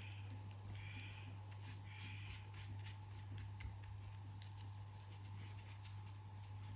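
Faint crinkling and rustling of a dry shed python skin as fingers smooth it down onto the board, over a steady low hum.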